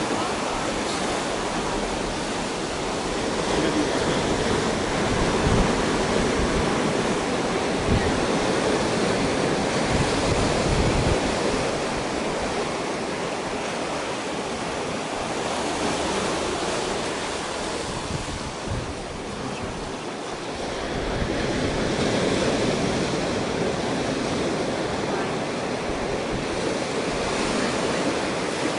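Ocean surf washing over a rocky beach: a steady rush of waves rolling in and draining back, swelling louder a few times and easing between.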